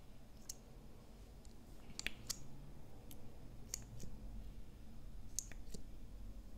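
Small sharp plastic clicks at uneven intervals as a lip gloss wand applicator goes in and out of its tube and dabs gloss onto clear slime.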